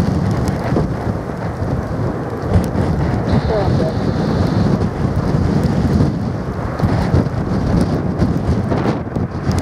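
Strong gusty wind of about 30–40 knots buffeting the microphone, a loud, uneven low rumble.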